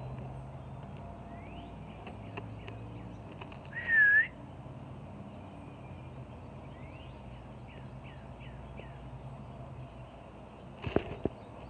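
Small birds giving short, faint rising chirps, with one loud whistled note about four seconds in that dips and rises. A few sharp knocks come near the end.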